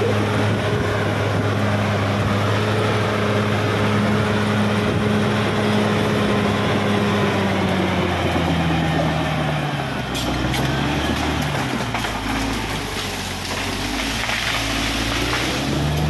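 Caterpillar D6R XL crawler bulldozer's diesel engine running as the dozer pushes soil and brush with its blade. The engine note holds steady, then drops and wavers from about halfway through.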